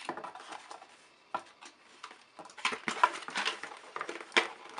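Clear plastic packaging crinkling and crackling in the hands while twist ties are undone. The crackling is sparse at first and grows busier and louder from about halfway through.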